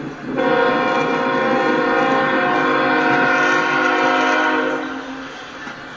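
Freight-train diesel locomotive air horn sounding one long steady blast, starting about half a second in and fading out around five seconds in, over the rumble of the passing train.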